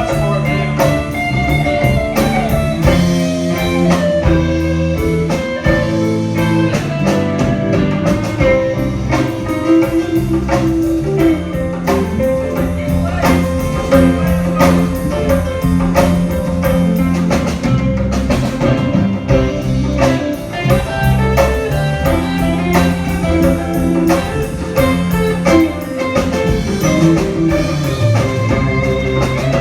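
Live band playing an instrumental blues-rock passage: electric guitar over bass and a drum kit keeping a steady beat.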